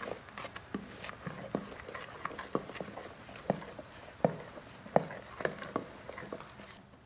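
Wooden spatula stirring wet rice flour into thick sugar syrup in a steel pot: wet squelching with irregular light knocks of the spatula against the pot, a few a second, easing off near the end.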